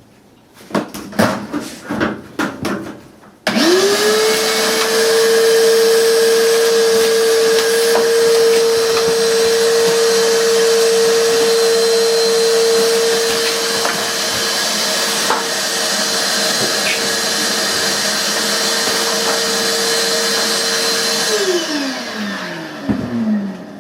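A few knocks of handling, then a vacuum cleaner switched on: its motor spins up to a steady whine and runs while it vacuums out the dryer. Near the end it is switched off and winds down with a falling pitch.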